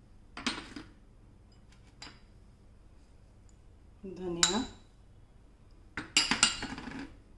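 Metal spoon clinking against a glass mixing bowl and a small ceramic bowl as ingredients are spooned in and stirred: a short clink about half a second in, a faint tap at two seconds, and a quick run of clinks near the end, the loudest of them.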